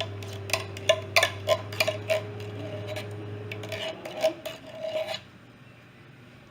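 A kitchen utensil scraping and clicking against a pan as canned chili is spread over rolled enchiladas: an irregular run of scrapes and taps that stops about five seconds in. A low steady hum underneath cuts off a little before the scraping ends.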